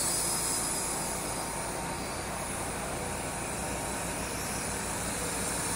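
Helicute Wave Razor toy quadcopter's small motors and propellers whirring steadily in flight. The sound grows a little fainter as it flies off, then a little louder again near the end.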